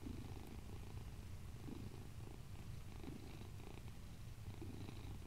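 Domestic cat purring close to the microphone, a soft, steady, low rumble.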